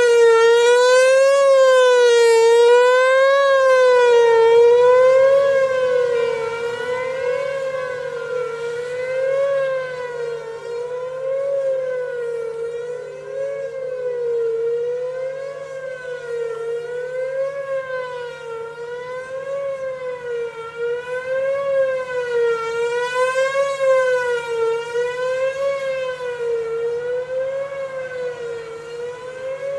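Whelen 4004 electronic outdoor warning siren sounding a wavering tone that rises and falls in pitch about every two seconds. It grows fainter after about five seconds and louder again a little past twenty seconds in.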